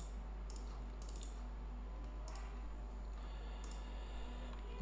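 Faint, scattered clicks of a computer mouse and keyboard, about half a dozen spread over several seconds.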